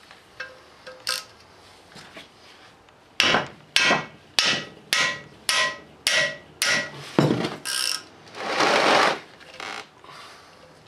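Steel hammer striking a ratchet handle nine times, about two blows a second, each with a short metallic ring, to shock a stuck plug loose from a cylinder head. A second-long scraping rasp follows.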